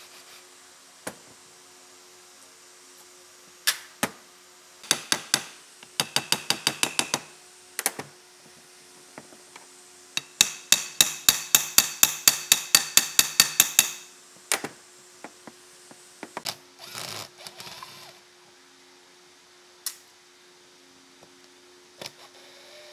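Hand tools at work: two runs of rapid, evenly spaced sharp taps, about five or six a second, the second run lasting several seconds, with scattered single knocks between them. A faint steady hum runs underneath.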